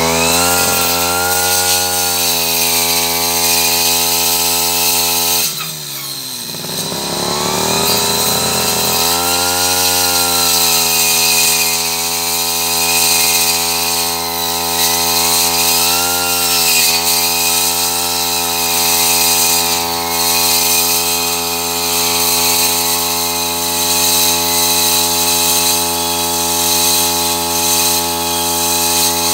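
Two-stroke brush cutter fitted with a circular saw blade, running at high revs while cutting wood, its pitch sagging and recovering as the blade loads in the cut. About five and a half seconds in the revs drop sharply, then climb back within about three seconds.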